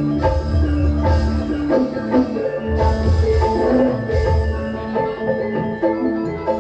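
Gamelan-style music played loud through a sound system: tuned metal or mallet percussion ringing out a melody over deep, recurring drum beats.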